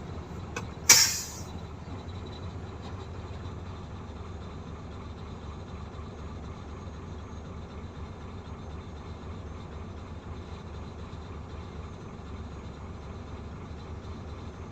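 A Caterpillar 320 excavator's diesel engine running steadily with a low rumble. About a second in, one sharp, loud hiss or clang cuts across it and fades within half a second.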